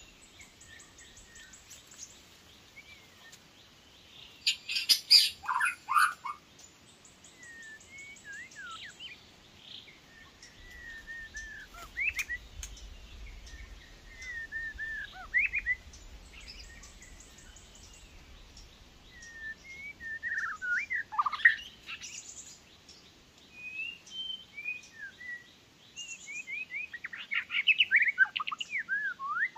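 White-rumped shamas calling: scattered clear whistled notes and short sweeping phrases, broken by a few loud bursts of chirps, with a quick run of notes near the end.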